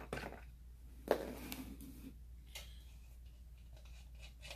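Screw cap being twisted off a plastic bottle, with one sharp click about a second in, followed by a few faint taps and clicks from handling the bottle.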